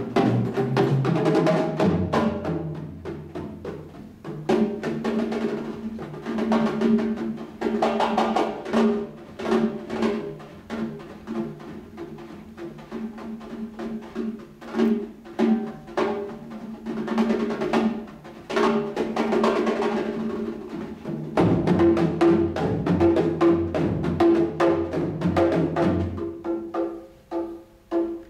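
Percussion trio playing: many quick strikes on drums over ringing low drum notes, with timpani among the instruments. The playing stops near the end.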